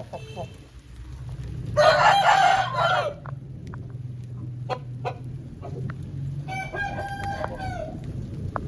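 Aseel chickens calling: a loud, harsh call about two seconds in and a rooster's crow near the end, with short clucks and clicks between.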